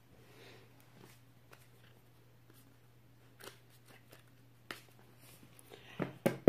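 Quiet room with a low steady hum and a few faint clicks, then a quick cluster of sharper clicks and taps near the end.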